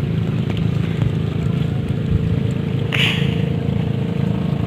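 An engine runs steadily, with a short hiss about three seconds in.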